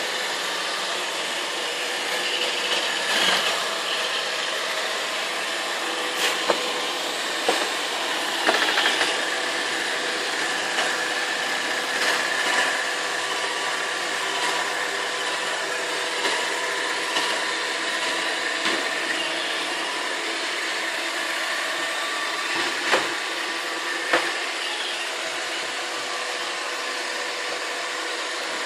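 Roomba robot vacuum running steadily, its motor whine over the hiss of suction and brushes, with a few short knocks scattered through.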